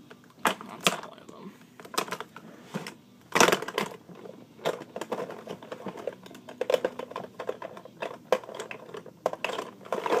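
Handling noise close to the microphone: irregular clicks, taps and knocks as objects are picked up and moved, with one louder knock about three and a half seconds in.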